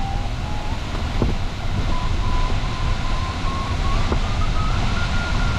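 Sailplane variometer tone climbing stepwise in pitch, the sign of the glider's climb getting stronger in a thermal, over the steady rush of airflow past the cockpit.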